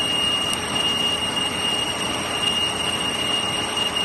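Zayer milling machine cutting a metal workpiece under flood coolant: a steady hiss of cutting and spraying coolant with a steady high-pitched whine over it.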